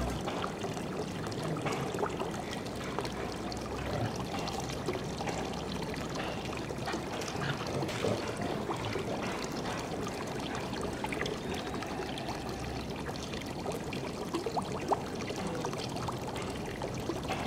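Steady trickle of water running in a swimming pool.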